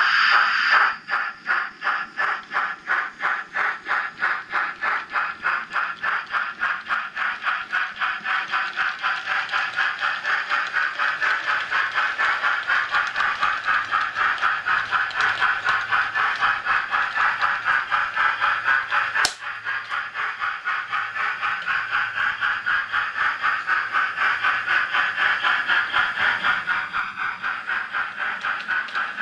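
Sound-fitted model steam locomotive chuffing in a steady, even rhythm of several beats a second as it pulls its coaches away. A single sharp click about 19 seconds in.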